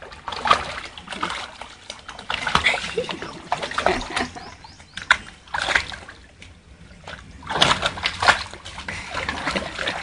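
A small dog splashing about in a plastic tub of water, the water sloshing and splattering in irregular bursts, with the busiest flurry about three-quarters of the way through.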